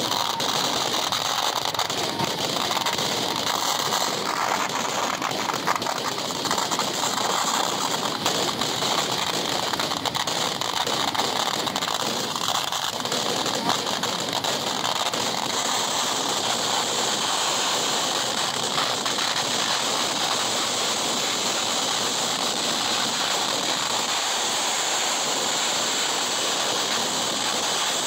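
Kerala temple-festival fireworks (vedikettu): a dense, unbroken barrage of firecracker explosions going off so fast that they merge into one steady din.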